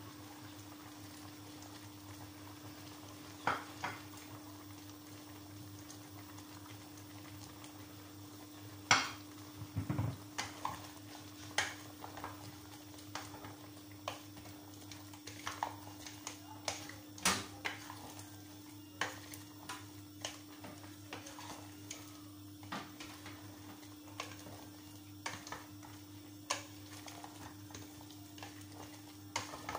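Wooden spoon stirring chunks of meat in a stainless steel pot, knocking and scraping against the pot's sides in irregular clacks, over a steady low hum.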